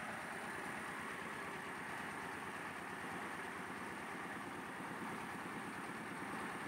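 Truck-mounted mobile rice mill running steadily, its engine and belt-driven hulling machinery making a constant mechanical noise with no change, while rice is put through a further milling pass to whiten it.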